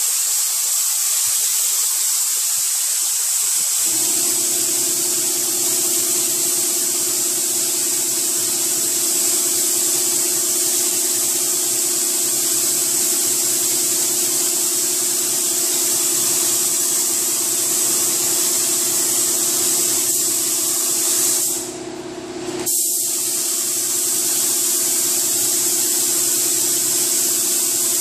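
Gravity-feed automotive paint spray gun hissing steadily as compressed air atomises clear coat onto a car hood. The hiss stops for about a second roughly three-quarters of the way through as the trigger is released, then resumes; a steady low hum joins about four seconds in.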